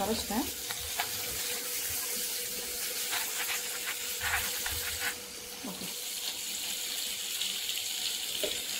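Hands squeezing and swishing soaked tamarind pulp in water in a steel bowl to dissolve it, with irregular wet squelches and splashes over a steady hiss.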